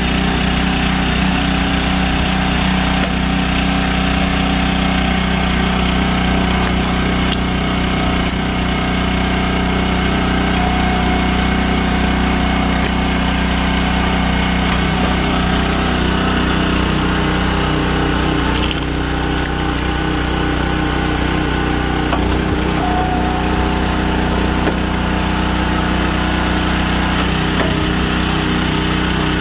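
Briggs & Stratton petrol engine of a log splitter running steadily to drive the hydraulic pump, its note dipping briefly twice.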